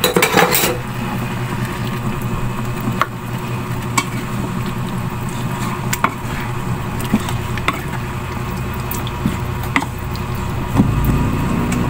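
Fried pork belly simmering in sauce in a pan: a steady sizzle with scattered sharp pops every second or two. Near the end a wooden spatula stirs the pieces through the thick sauce.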